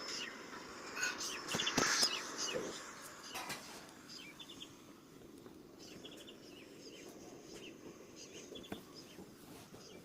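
Birds chirping in short, quick clusters of two to four, repeating. A louder rustling noise with a few sharp clicks comes about one to two seconds in.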